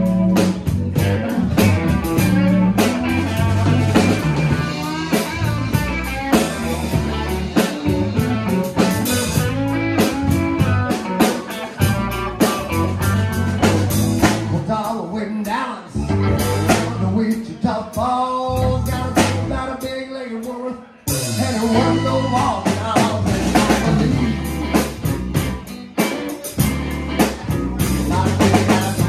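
Live blues band, with electric guitar, bass guitar and drum kit, playing a funky blues groove. About three-quarters of the way through the band stops for a split second, then comes straight back in.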